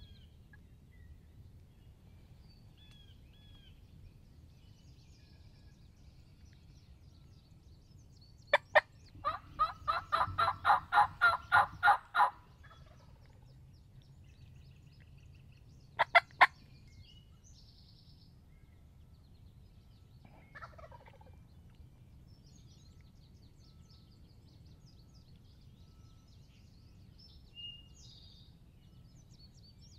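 A turkey call imitating a hen: two sharp clucks, then a loud run of about a dozen evenly spaced yelps, and two more clucks a few seconds later.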